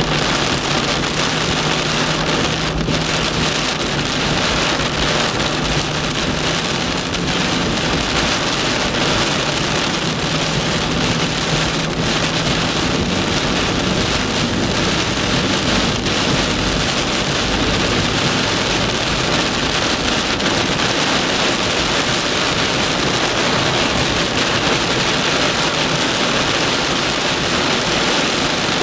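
Heavy downpour pelting a car's roof and windshield, heard from inside the car as a loud, steady, dense rush of rain.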